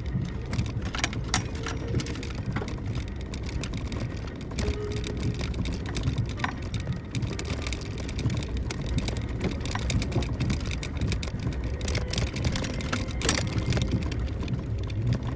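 Suzuki Jimny JB64 driving slowly downhill on a rough gravel forest road: a steady low rumble of engine and tyres, with frequent small clicks and knocks from stones and rattling parts.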